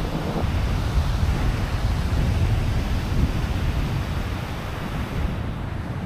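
Wind buffeting the microphone over a steady rush of sea surf.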